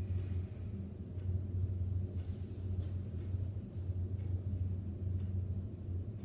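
A steady low hum with no speech.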